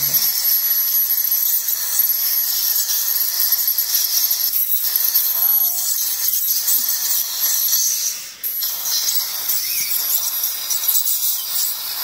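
Ultrasonic dental scaler running against the back teeth during a scaling, a steady high-pitched hiss and whine mixed with the suction tube drawing off water. It breaks off for a moment about eight seconds in, then carries on.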